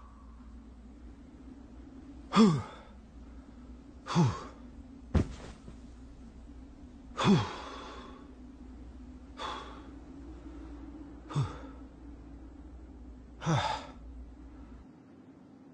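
A man's breathy gasps and sighs, about one every two seconds, most of them dropping in pitch, over a steady low hum. A short sharp knock about five seconds in.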